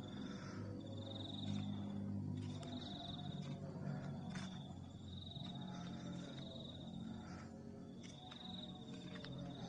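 An insect trilling at a high pitch in repeated bouts of about a second, over a low steady hum.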